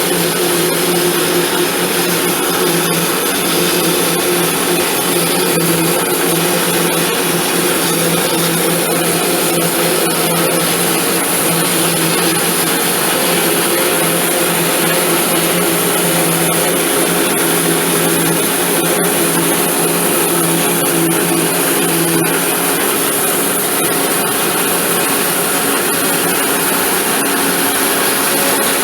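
An electric power tool running steadily and loudly, with a constant hum; the lower part of the hum drops away about three-quarters of the way through.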